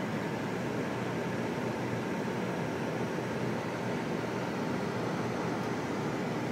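Steady rushing noise on the flight deck of a Boeing 747-400F in flight on approach, with a faint steady whine.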